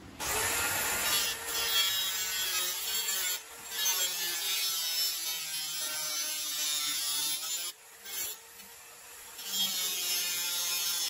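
Handheld electric saw running and cutting lengthwise through PVC sewer pipe: a steady motor whine with cutting noise. The sound dips briefly about three and a half seconds in, falls away for a couple of seconds near eight seconds, then picks up again.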